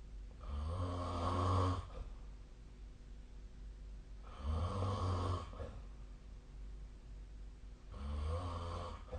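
A sleeping person snoring: three snores, each lasting about a second, coming roughly every three and a half seconds.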